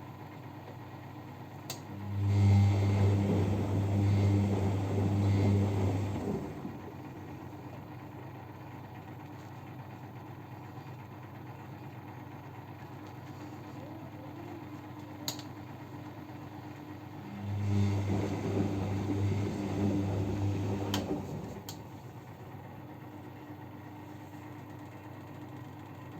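Siemens washing machine washing with a very high water level: the drum motor hums and the drum turns the laundry through the water for about four seconds, twice, with a long pause between turns. A few sharp clicks come between the turns.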